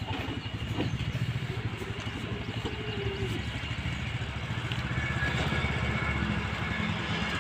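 Swaraj Code mini tractor's single-cylinder diesel engine running steadily with a fast, even chugging, growing slightly louder in the second half.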